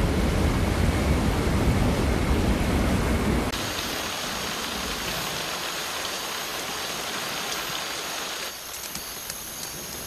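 A waterfall's steady, low rush cuts off about three and a half seconds in to rain falling on rainforest foliage, a lighter, higher hiss. Near the end the rain thins and scattered drips tap out.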